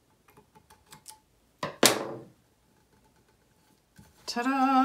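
Small metal craft tool trimming a vinyl decal on a tumbler: a few faint ticks, then one sharp clack about two seconds in that rings briefly. Near the end a voice sings out "Ta-da!"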